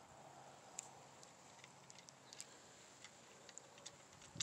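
Near silence: faint outdoor ambience with a few small, sharp ticks scattered through it.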